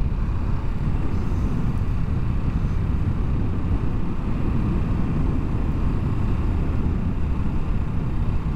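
Steady wind noise on the microphone of a Kawasaki Ninja 650 cruising at about 55 km/h, with the bike's parallel-twin engine running evenly underneath.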